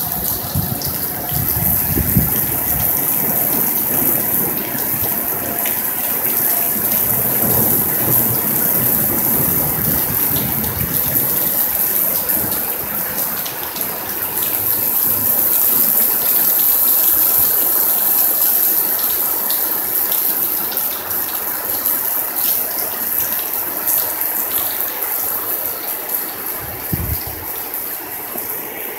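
Heavy rain pouring steadily in a thunderstorm, with low thunder rolling through the first ten seconds or so and a brief rumble near the end.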